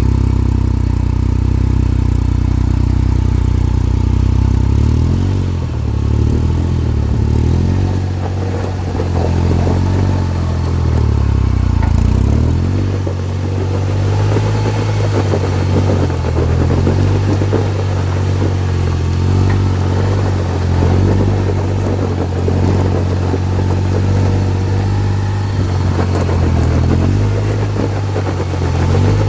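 Polaris Ranger 1500 side-by-side's three-cylinder engine running as the vehicle drives, its speed rising and falling several times, with a clattering, clunking noise that the owner puts down to the rear differential.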